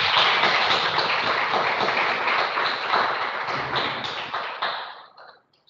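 Audience applauding: a dense patter of many hands clapping that fades out after about five seconds.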